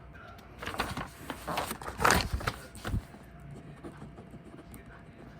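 Rustling and scraping handling noise in bursts for about two seconds, loudest around two seconds in, followed by a few faint ticks.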